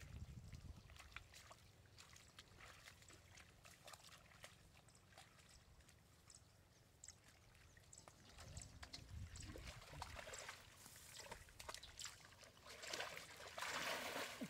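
Faint sloshing and trickling of shallow water, with scattered small clicks and splashes, and a louder burst of splashing near the end.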